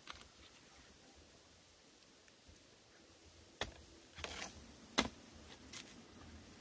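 Wooden digging stick knocking and scraping in dry soil while digging out bamboo shoots: a few sharp knocks in the second half, the sharpest about five seconds in.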